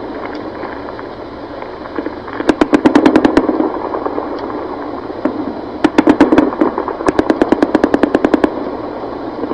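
Automatic gunfire in two rapid bursts of about ten shots a second. A short burst comes about two and a half seconds in, and a longer one with a brief break runs from about six seconds in, over a steady background rumble.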